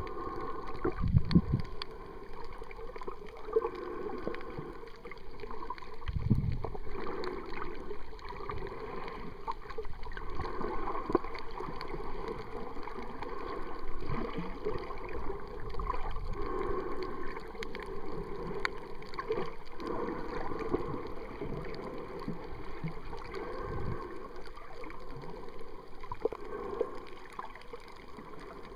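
Muffled water sloshing and gurgling around a camera held underwater, with low thumps about one second and six seconds in.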